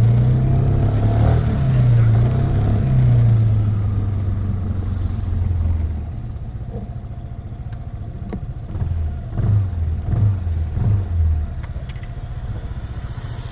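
Yamaha N-Max 125 scooter's single-cylinder four-stroke engine running as it rides at low speed, then settling to a lower steady idle about six seconds in as the scooter stops. A few seconds later the engine note rises briefly several times.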